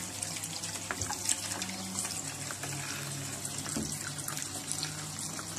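Kitchen tap running into a plastic basin of water, which is stirred with a plastic spatula, giving small splashes. There is a low steady hum underneath.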